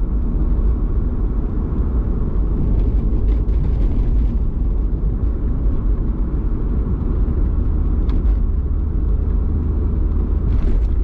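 Steady low road and tyre rumble inside the cabin of a 2003 Ford Mustang cruising at constant speed, with a few faint ticks. The door sound deadener just fitted has barely changed it: still the same sound.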